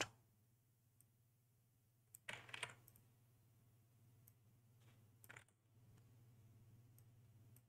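Quiet computer keyboard clicks: a short cluster about two and a half seconds in and another about five seconds in, with a few single faint ticks, over a faint steady low hum.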